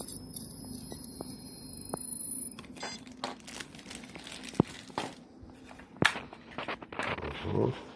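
Ultrasonic knife running with a steady high whine as it cuts through a plastic housing, stopping about two and a half seconds in. Then sharp clicks, cracks and knocks as the cut plastic is handled and broken away.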